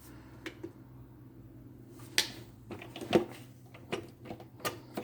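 Scattered clicks and knocks of hard plastic as a Ninja blender's jar and lid are fitted and its buttons pressed, over a faint steady low hum. The motor is not running.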